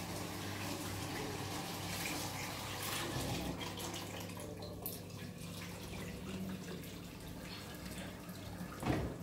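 Running water, steady throughout, over a low hum, with a few light clicks and one louder knock near the end.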